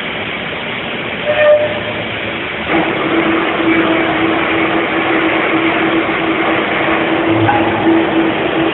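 Milltronics RW15 CNC milling machine running through a cut, a steady mechanical whirr with a steady hum that comes in about three seconds in and holds.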